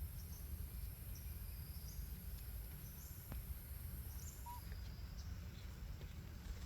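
Outdoor ambience: a steady low rumble with faint, scattered short high-pitched chirps.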